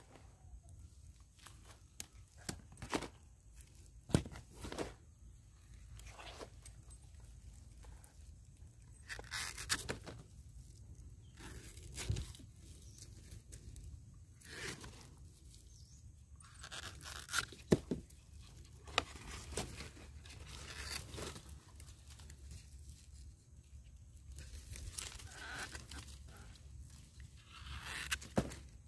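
Sweet taro stalks being cut through at their base with a blade: a series of separate crunching, tearing cuts at irregular intervals, the loudest about two-thirds of the way in.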